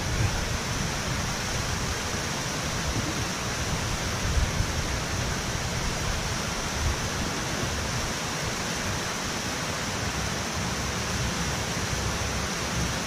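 Steady rush of water pouring out of a dam's spillway gates into the river below: an even hiss with an uneven low rumble beneath it.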